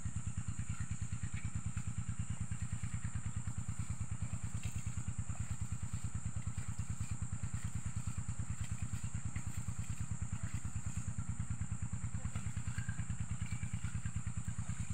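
Small engine-driven irrigation water pump running steadily, its engine chugging with an even, rapid beat.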